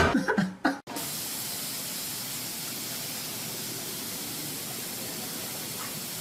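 Music breaks off within the first second, then a steady, even hiss with no other sound in it runs until it stops abruptly near the end.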